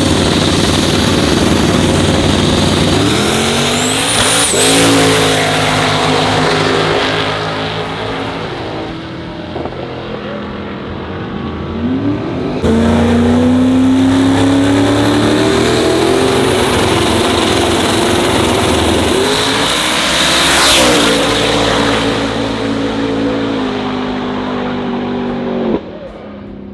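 Race car engines running and revving, the pitch rising sharply twice as a car pulls away, in clips cut abruptly one after another.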